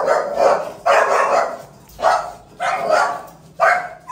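A dog barking repeatedly, about five barks in a little over three seconds.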